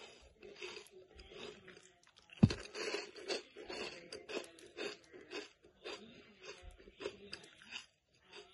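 Crispy coconut rolls crunching in a rapid, irregular run of short crackles, with one sharp knock about two and a half seconds in.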